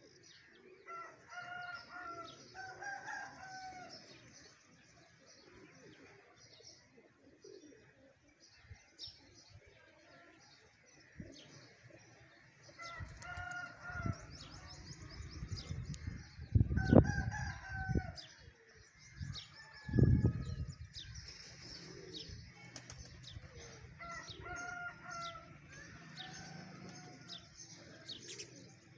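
A rooster crowing several times over a constant chatter of small birds chirping. Two loud low thumps past the middle are the loudest sounds.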